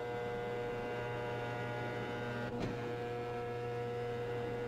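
Steady electrical hum made of several held tones, broken by a brief click about two and a half seconds in.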